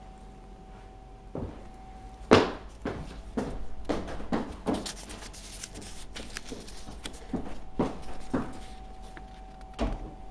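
Irregular knocks and bumps of things being handled and moved, the loudest about two seconds in and a busy run between four and six seconds, over a faint steady hum.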